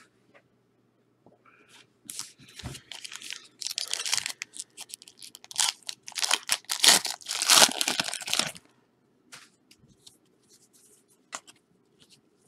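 Foil trading-card pack wrappers being torn open and crinkled, in a run of rips over several seconds, then light ticks and rustles of the cards being handled near the end.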